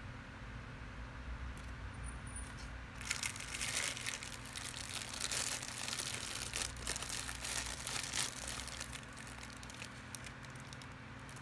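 Thin clear plastic packaging bag crinkling as it is handled and pulled off a digital caliper. A dense run of crackles starts about three seconds in and dies down near the end.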